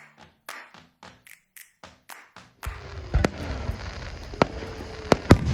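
Consumer fireworks going off: a quiet stretch of faint, regular pops, then a run of sharp, loud bangs and crackles at uneven intervals from about halfway through, with a faint falling whistle among them.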